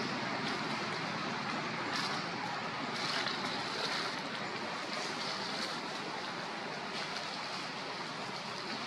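Steady, even outdoor hiss like wind, with a few faint short crackles of dry leaves as a long-tailed macaque picks through and walks over leaf litter.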